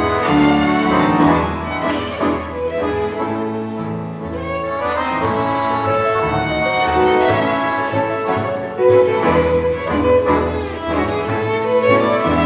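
Live chamber ensemble playing classical music: a violin carries the melody over a digital piano and accordion accompaniment.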